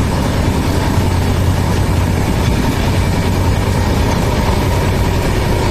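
Passenger train running steadily: an even, continuous rumble with a low hum and no breaks or sudden sounds.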